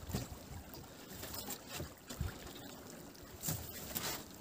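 A fishing net being hauled hand over hand over the side of a metal boat, water trickling and dripping off the mesh, with a few light knocks.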